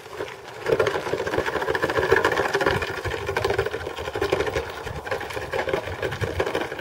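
A small motor-driven machine running steadily with a fast, even chattering rhythm. It starts about half a second in and cuts off abruptly at the end.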